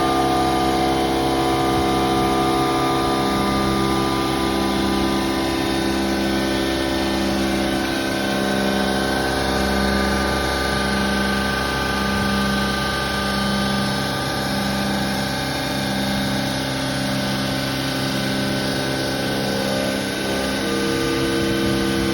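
Machine tool running steadily as it machines a shower tray, a mix of steady mechanical tones with a low tone pulsing about once a second.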